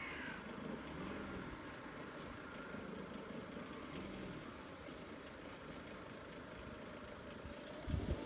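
Steady, fairly quiet background rumble of road traffic, with a couple of dull knocks near the end.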